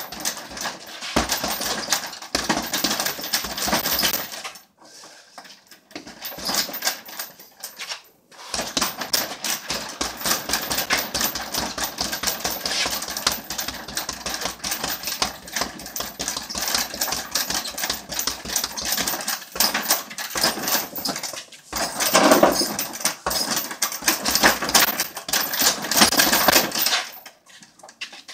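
Rapid flurries of punches landing on an 80 lb Tuf-Wear heavy boxing bag: quick slapping thuds many times a second, broken by a pause of a few seconds about five seconds in.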